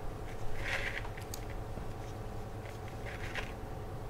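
Soft rustles and light gritty scrapes of hands handling a small plastic pot of sandy, pumice-rich cactus potting mix, a few brief touches over a faint steady hum.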